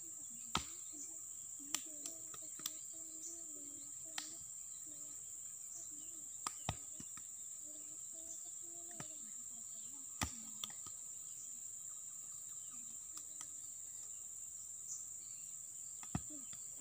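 Steady high-pitched insect drone, with about ten sharp slaps or clicks scattered irregularly through it.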